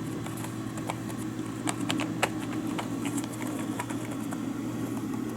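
Soft, quiet key taps from typing on a flexible foldable keyboard, irregular with a small flurry about two seconds in. Under them runs the steady hum of the desktop computer, louder than the typing.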